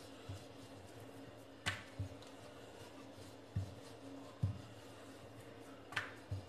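Wooden rolling pin rolling out a folded paratha on a stone rolling board: soft low knocks every second or so as the pin presses and bumps the board, with two sharper clicks, one near the start and one near the end.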